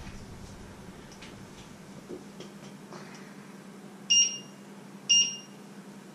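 Electric hob's touch-control panel beeping twice, about a second apart, as its buttons are pressed: two short, high electronic beeps.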